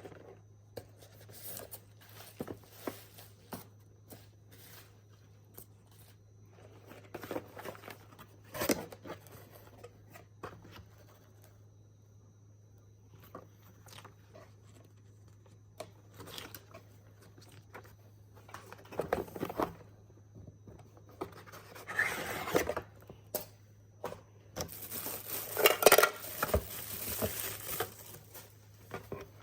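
Box and packaging being handled during an unboxing: scattered taps, rustles, tearing and scraping, busiest near the end. A steady low hum runs underneath.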